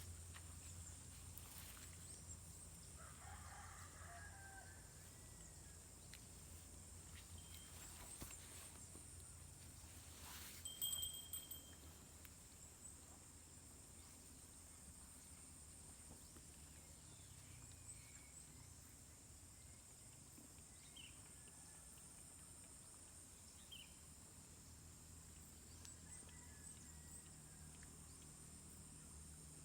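Near silence: faint rural outdoor ambience with a steady high hiss, a faint animal call a few seconds in, and one brief louder knock about a third of the way through.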